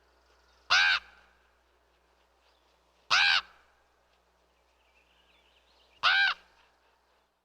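Raven calling: three short, harsh calls about two and a half to three seconds apart, each with a slight rise and fall in pitch, over a faint low hum.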